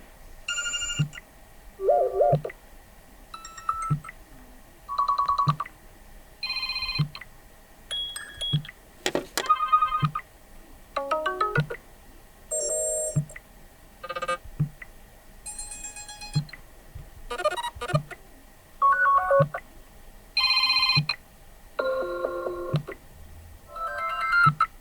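Sony Xperia 1 IV default ringtones previewed one after another: a short snippet of each, roughly one every second and a bit, each a different electronic melody at a different pitch. A short low thump comes just before each snippet.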